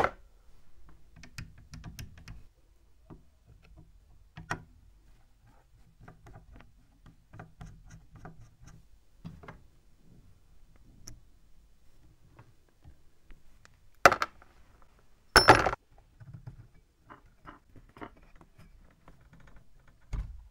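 Small metal clicks, taps and scrapes from tweezers and a screwdriver working the rusty parts of a hand drill, starting with a sharp click as a small part drops into a plastic tray. About two-thirds of the way through come two loud, brief clatters close together.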